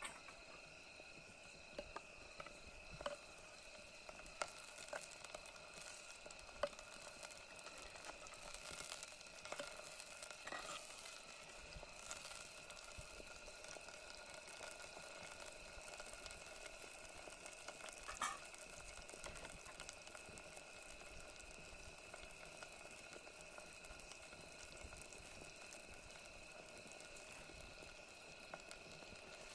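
Faint sizzling of chopped tomatoes frying in oil in a pan, with sharp clicks and scrapes of a spoon stirring: several in the first few seconds and one more about 18 seconds in. A faint steady whine sits underneath.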